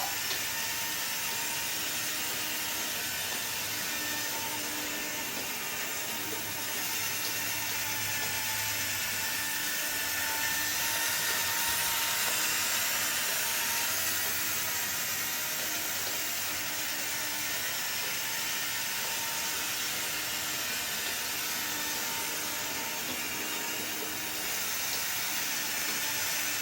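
Electric drive motor of a Disney D23 Mark VII monorail playset, upgraded with a Team Losi speed controller, running at speed along its track with a steady whir. It grows a little louder twice along the way.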